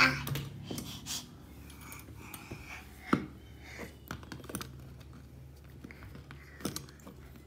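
Small scattered clicks and scrapes of a thin Allen wrench being fitted into the set screw under a chrome towel ring's wall mount, metal tapping on metal, with one sharper click about three seconds in.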